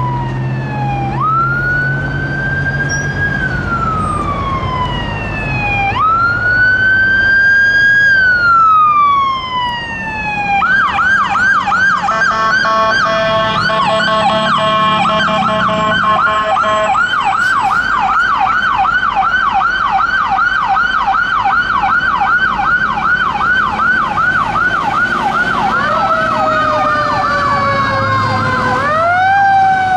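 Electronic sirens of responding fire trucks. A slow wail rises and falls a few times, then switches to a fast yelp, with two sirens overlapping for several seconds. The wail returns near the end.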